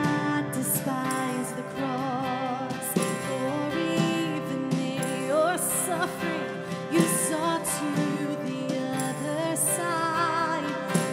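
A woman singing a worship song, holding notes with vibrato, over an acoustic guitar accompaniment.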